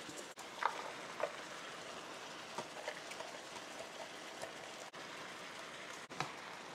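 Chicken and chopped vegetables frying in an electric skillet: a steady sizzle, with a few light clatters as the raw vegetables are tipped in from a metal bowl and stirred with a spatula.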